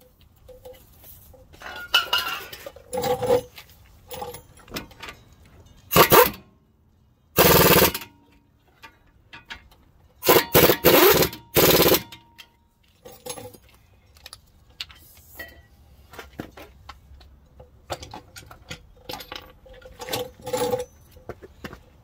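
Power tool running two bolts in, in five short bursts: one about six seconds in, a longer one just after, then three close together around eleven seconds. Metal clinks and scrapes from handling the tools and parts come in between.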